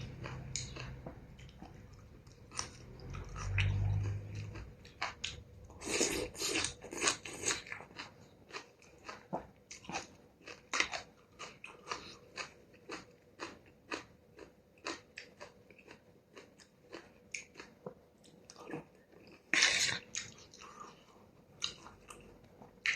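Close-up eating sounds of noodle soup with stewed beef: wet chewing and mouth smacks, about two a second. Louder noisy bursts come about six seconds in and again near the end.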